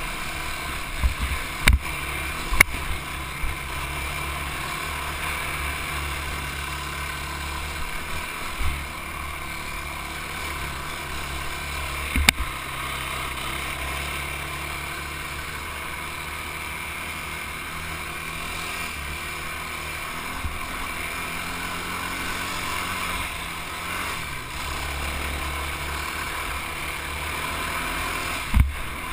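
Quad (ATV) engine running steadily while riding a dirt trail, with a few sharp knocks: twice in the first few seconds, once about twelve seconds in, and once near the end.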